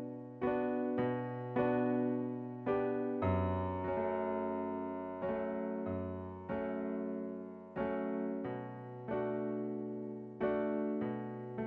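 Background music: piano chords struck one after another, each ringing and fading. Some chords come in quick succession and others are held for a second or two.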